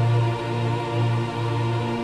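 Music: sustained chords over a low bass note that swells about twice a second.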